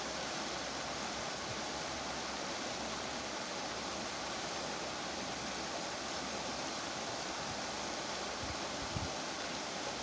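River water rushing steadily through a gap in a stone-and-stake weir, as a continuous even roar of white water. A brief low thump near the end.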